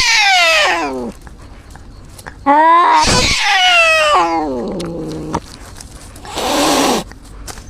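Cat yowling: two loud, drawn-out cries that fall in pitch, the second starting about two and a half seconds in and lasting longer, then a short, harsh noisy burst near the end.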